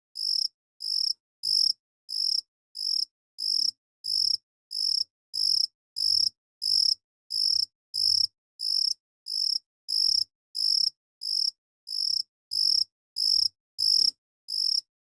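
A cricket chirping in a steady, even rhythm: short high chirps about three every two seconds, each separated by a clean gap of silence.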